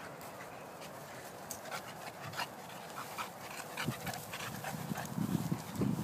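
Dogs panting and snuffling as they greet and play, with scattered short clicks, getting louder toward the end.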